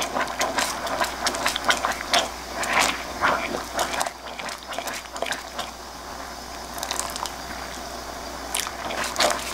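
Silicone spatula stirring and scraping around a stainless steel saucepan of boiling sauce as potato-starch slurry is stirred in to thicken it. Irregular scrapes and light taps, busiest in the first half and again near the end.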